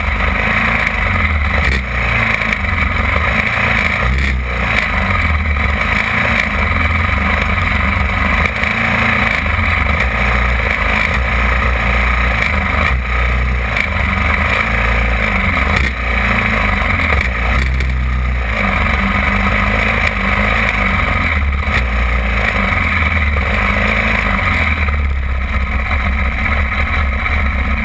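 Champ kart engines idling, with the low engine note swelling and dropping irregularly.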